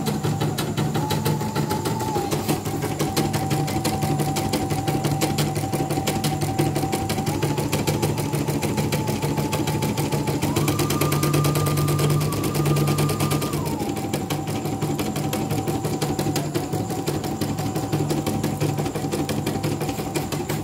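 CNY computerised embroidery machine stitching: a fast, even rattle of needle strokes over a steady whine that steps up in pitch for a few seconds around the middle.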